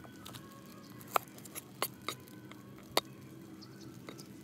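Meat cleaver knocking on a wooden cutting board while cutting garlic: a few sharp, scattered knocks, the two loudest about two seconds apart.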